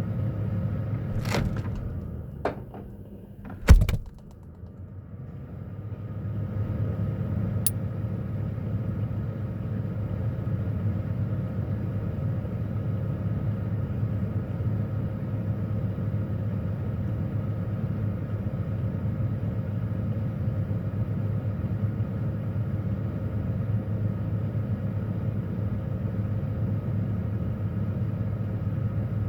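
Steady refrigerator hum, heard from inside the fridge, with a few knocks and one loud thump about four seconds in; the hum drops away briefly after the thump, then builds back to a steady level.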